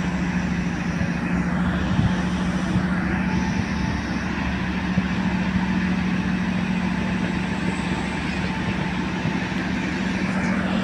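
A large engine running steadily, a constant low hum under an even drone.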